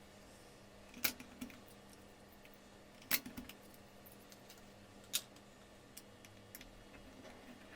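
Sharp single clicks from a mechanical keyboard's keys being pressed one at a time, the strongest about every two seconds with a few softer ones between, over a faint steady hum.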